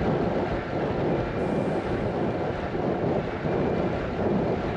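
Steady wind noise buffeting the microphone of a rider's camera on a moving bicycle.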